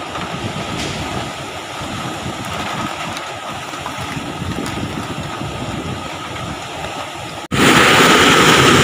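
Typhoon wind and rain with heavy surf breaking over a seawall: a steady, dense rush of noise. About seven and a half seconds in it cuts off abruptly and comes back much louder, with wind buffeting the microphone.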